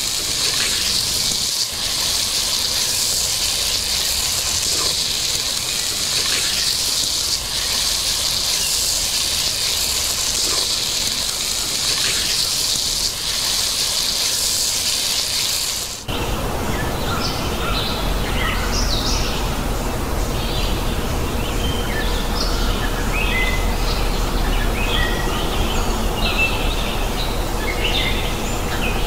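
Chicken pieces sizzling in hot oil in a clay pot as they are tipped in and stirred, a dense steady hiss. About halfway through it cuts off and gives way to birds chirping over a low rumble.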